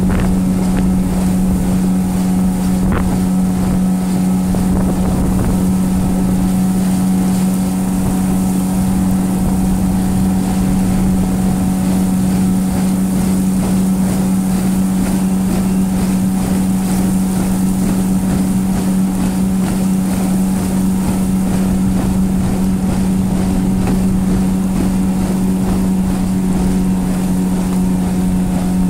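Small boat's motor running steadily at a constant pitch, with the boat under way at an even speed.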